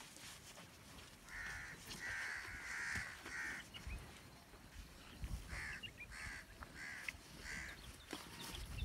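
A crow cawing: two runs of about four harsh caws each, the first starting over a second in and the second about five and a half seconds in.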